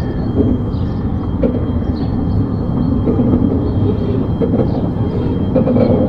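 Ravenglass and Eskdale Railway 15-inch-gauge miniature train running along the track, heard from the carriage: a steady rumble of wheels on rails with scattered clicks and a thin steady high whine.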